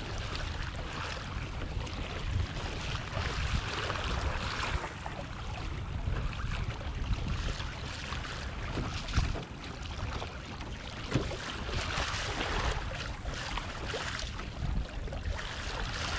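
Sea water splashing and lapping against a kayak's hull, with wind rumbling on the microphone.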